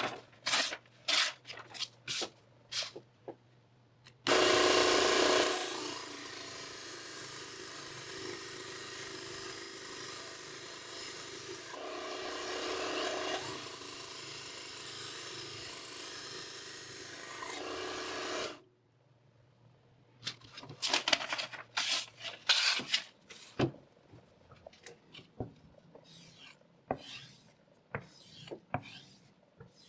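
Knife blade being sharpened against an abrasive: quick rasping strokes, then a continuous grinding scrape of about fourteen seconds that starts abruptly and cuts off suddenly, then quick rasping strokes again.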